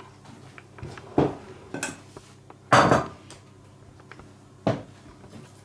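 Kitchen crockery and utensils being handled and set down: four separate knocks and clinks, the loudest near the middle.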